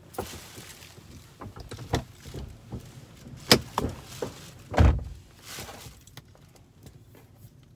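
Clicks, knocks and rattles of rummaging through a car's interior compartments for coins, with a heavier low thump about five seconds in.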